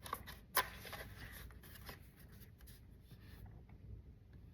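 Faint handling of the RC truck's plastic pistol-grip controller: light rubbing and small clicks, with one sharper click about half a second in.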